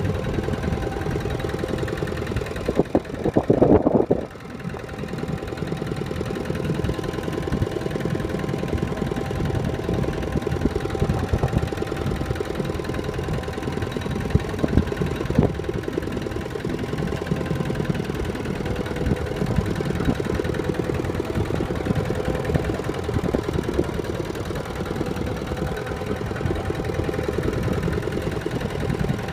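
Tractor engine running steadily as it drives across a field, with a brief louder burst about three seconds in.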